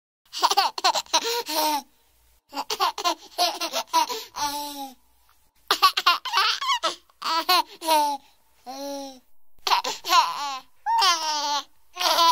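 A baby laughing in repeated high-pitched bouts of giggles with short pauses between them, starting about half a second in.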